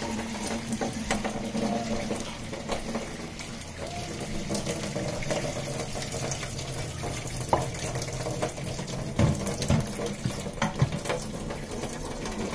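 Kitchen tap running steadily into a stainless steel sink while hot rice-cooking water is poured from a pot through a steel colander, splashing into the sink. A few light knocks come near the end.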